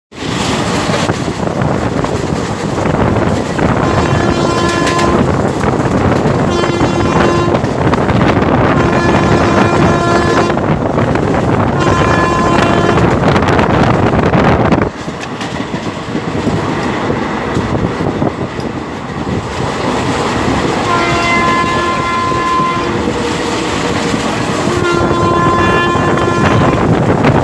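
Indian Railways WAP-4 electric locomotive's high- and low-tone horns sounding together in repeated honks over the steady rush and rail clatter of an express running at high speed, heard from a coach of the train. Four honks of about a second each come in the first half; the running noise drops suddenly about fifteen seconds in, and two longer honks follow near the end.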